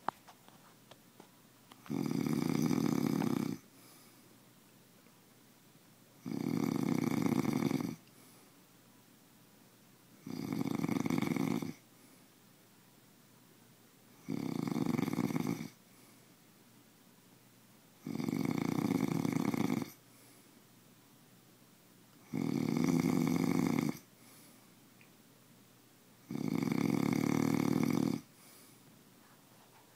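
Snoring in a steady rhythm: seven long snores, each about a second and a half, coming about every four seconds with quiet breaths between.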